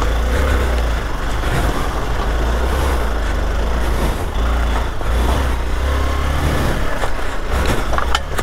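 Hero XPulse 200 motorcycle's single-cylinder engine running as the bike is ridden over a rough dirt trail, under a steady rushing noise, with a sharp click near the end.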